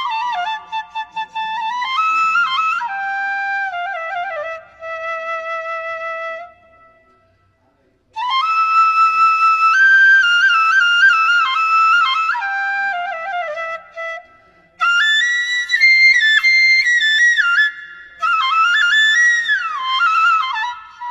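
Instrumental background music: a flute melody played in phrases, its notes sliding from one to the next, with a pause of about a second and a half partway through.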